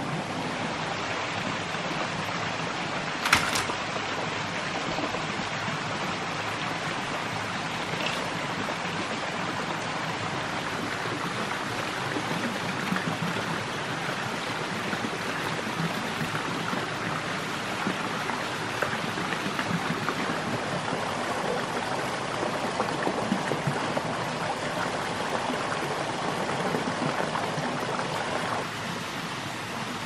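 Forest stream running steadily, with one sharp click about three seconds in and a fainter one a few seconds later.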